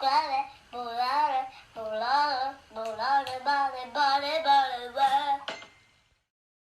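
A high voice singing short phrases of wavering, held notes, which stops about five and a half seconds in; the last second is near silent.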